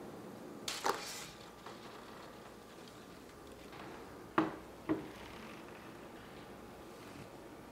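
A brief rustle of flower stems, then a glass vase set down on a side table: two sharp knocks about half a second apart.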